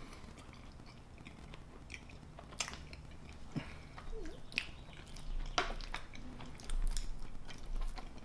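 Close-miked chewing and biting of a person eating chili cheese fries: soft, irregular wet mouth clicks and smacks.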